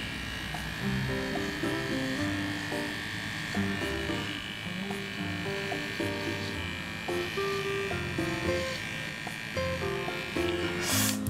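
Small electric pet paw trimmer running with a steady whine as it clips the fur between a dog's paw pads, over background music. A short burst of noise comes near the end.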